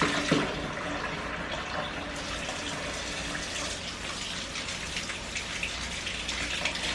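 Kitchen tap running steadily as peeled hard-boiled eggs are rinsed under the stream to wash off the last bits of shell.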